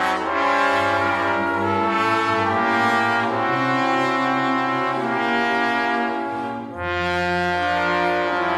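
Four trombones playing long held chords in harmony with a symphony orchestra's strings. The chord breaks off briefly and a new one begins about three-quarters of the way through.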